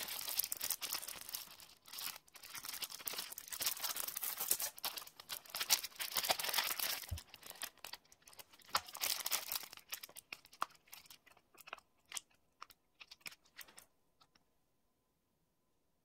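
Clear plastic sticker sheet of rhinestones crinkling as it is bent and handled in the fingers, dense for about the first ten seconds, then thinning to scattered crackles and ticks that stop shortly before the end.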